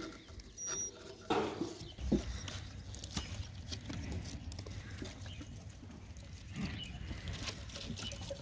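Six-week-old puppies scrambling over a pile of logs: claws scratching and tapping on the wood in many small clicks and scrapes, with a short puppy squeal about a second and a half in.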